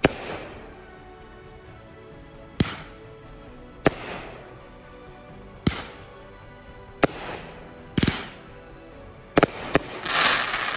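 A 500-gram consumer firework cake fires its shots: about eight sharp bangs spaced one to two seconds apart, each trailing off in a crackle. Near the end, two come in quick succession and are followed by a dense burst of crackling.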